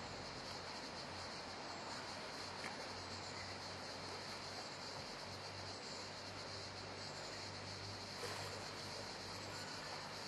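Steady outdoor riverside ambience: an even hiss with a constant high-pitched band over it and a low hum beneath. Two faint ticks come, one about two and a half seconds in and one about eight seconds in.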